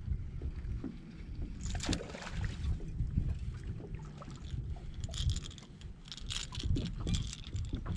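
Hooked bass splashing at the surface as it is reeled in, about two seconds in, then thrashing and splashing again as it is swung up out of the water near the end. A steady low rumble runs underneath.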